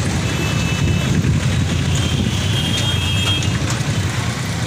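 Steady low vehicle rumble, with a faint high-pitched tone briefly about two seconds in.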